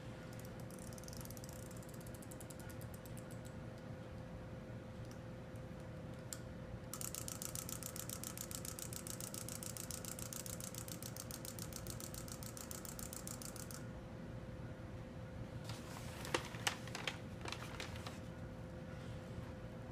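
Small clockwork toy: rapid ratchet clicks while it is wound by hand, then a fast, even clicking of its spring mechanism for about seven seconds that stops abruptly as it runs down. A few sharp knocks near the end.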